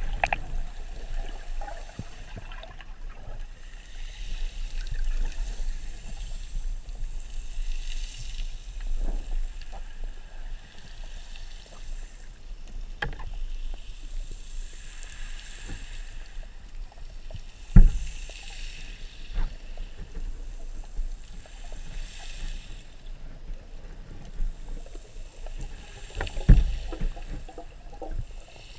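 Underwater ambience picked up through a waterproof camera housing: a muffled rush of water over a low rumble, swelling and fading every three to four seconds. A few sharp knocks cut through, the loudest about eighteen seconds in.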